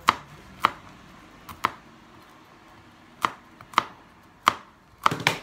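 Chef's knife chopping walnuts on a plastic cutting board: about nine sharp knocks at an uneven pace, the last two in quick succession near the end.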